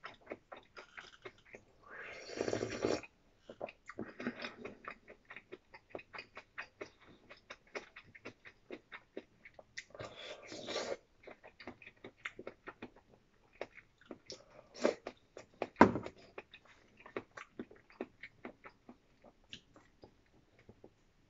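Close-up eating sounds: a person chewing with many quick, wet mouth clicks, broken by two longer, noisier sounds about two and ten seconds in.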